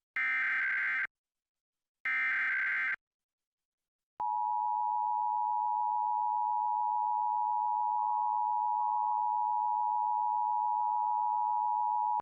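Emergency Alert System SAME header: two one-second bursts of warbling data tones a second apart. About four seconds in, the EAS two-tone attention signal (853 and 960 Hz together) sounds steadily for about eight seconds, then cuts off.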